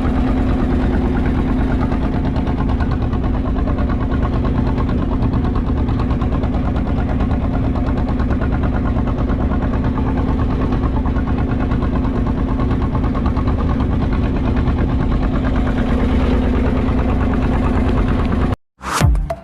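A fishing boat's engine running steadily with a fast even throb, until it cuts off near the end.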